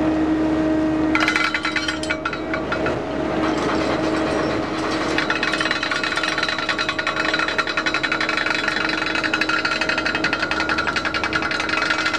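Heavy steel trawl chains running out over the side of a fishing trawler, a fast metallic rattling and clanking of links over steel, briefly about a second in and then without a break from about five seconds. A steady machinery hum runs underneath.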